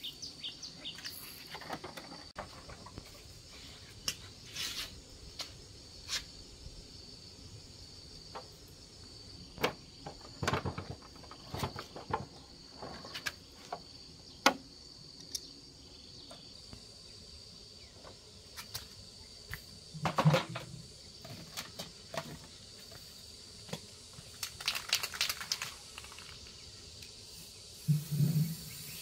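Scattered clicks, taps and knocks of hand tools and parts being handled while working on a motorbike, with a few low thuds, over a steady high insect drone.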